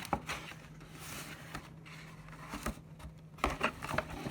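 Rustling, scraping and light knocks of retail packaging being handled and opened by hand, with a denser run of clicks and rustles about three and a half seconds in.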